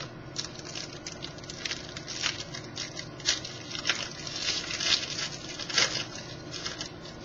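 2012 Topps Finest baseball cards being handled and shuffled through by hand, an irregular run of rustles and light clicks.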